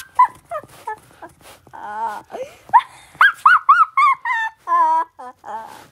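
High-pitched human voice making wordless whimpering and squealing noises, with a run of short rising-and-falling squeaks in the middle and a few held tones near the end. A few faint clicks come at the start.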